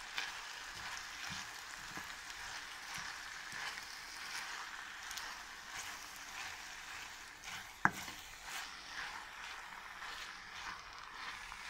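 Fresh spinach and rice sizzling in hot oil in a pan while being stirred with a wooden spoon, with a steady hiss, small scrapes and clicks, and one sharp knock of the spoon about eight seconds in.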